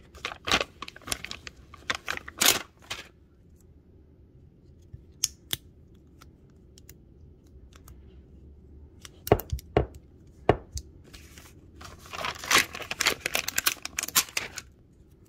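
Stickers being peeled from their backing sheet and pressed onto a glass soap dispenser: crackly peeling and paper rustling in bursts, with a few sharp knocks in the middle.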